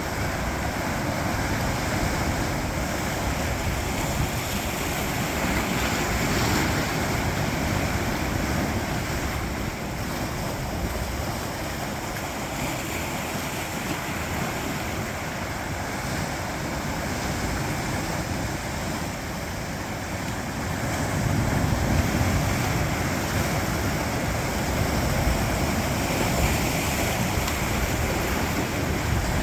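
Sea waves washing and breaking against coastal rocks, a continuous surf that swells and ebbs, louder about two-thirds of the way through.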